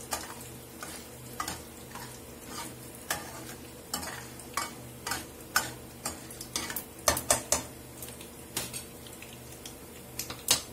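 Mustard seeds, dals and a dried red chilli frying in hot oil in a metal kadai: a steady sizzle with irregular sharp pops and crackles as the mustard seeds burst. A steel ladle stirs and scrapes the pan through it.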